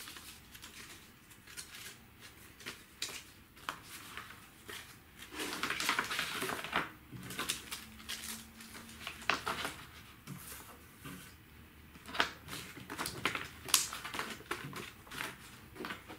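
Paper leaflets and a plastic envelope folder being handled on a wooden desk: crisp rustling and crinkling with scattered taps and clicks, and a longer rustle about five to seven seconds in.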